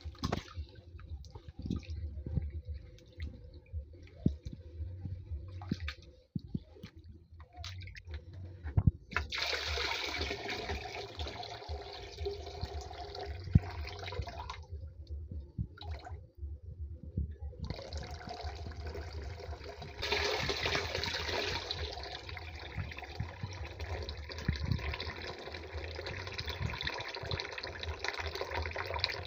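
Rice being washed by hand in a plastic bucket: first the grains are rubbed and swished in the water with small clicks and splashes, then the cloudy rinse water is poured off in a thin stream into another bucket. There are two long pours, one from about nine seconds in and one from about halfway through, with a short break between them.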